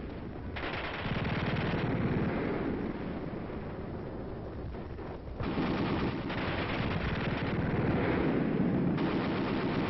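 Battle sound track of dense gunfire with machine-gun rattle and artillery fire. It changes abruptly about half a second in and again near the middle, as edited sound effects do.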